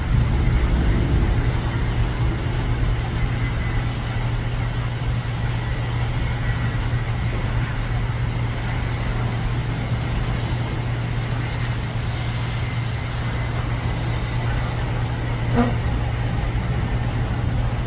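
A Boeing 757-232's two Pratt & Whitney PW2037 turbofan engines at takeoff thrust: a steady low roar as the jet lifts off and climbs away.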